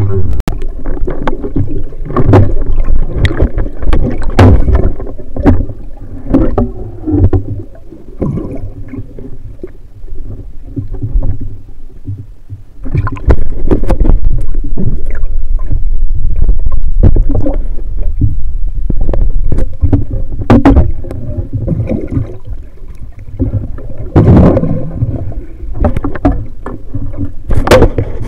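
Water moving against an underwater camera housing, a loud low rumbling and gurgling broken by many clicks and knocks as the camera is jostled and a speared fish is handled. It is loudest in the middle stretch.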